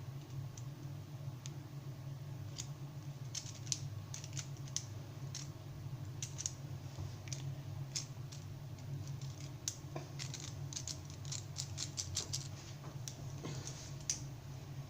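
Small irregular plastic clicks and taps of a Beyblade Burst top's parts being handled and fiddled with by hand, over a steady low hum.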